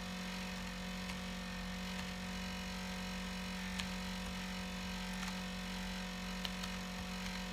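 A steady low electrical hum with room noise, and a few faint, scattered clicks.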